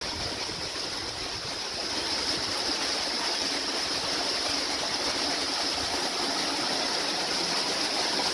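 Water flowing steadily through a jam of branches and driftwood at the edge of a slow river channel, an even rushing wash with no breaks.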